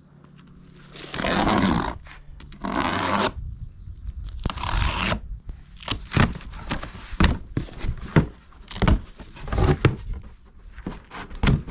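Packing tape ripped off a cardboard shipping box in three long tears, followed by a run of short knocks and scrapes as the cardboard is handled.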